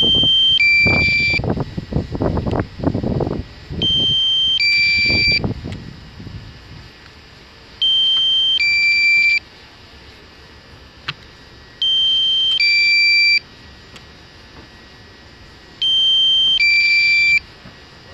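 An electronic alarm beeping in a repeating cycle about every four seconds. Each cycle is a short steady beep followed by a longer, higher two-tone beep, about a second and a half in all. Low muffled sound runs under the first two cycles.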